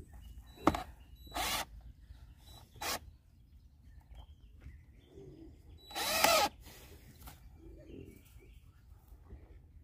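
Power drill driving screws in short bursts: a sharp knock near the start, two brief runs, then a longer run about six seconds in.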